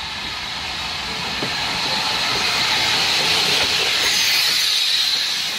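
Steam tank locomotive passing close by with a steady hiss of steam that grows louder over the first few seconds and eases near the end, its coaches rolling past behind it.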